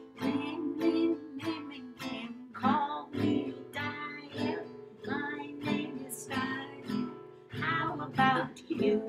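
Acoustic string instrument strummed in a steady rhythm, about two strums a second, with two women's voices singing along.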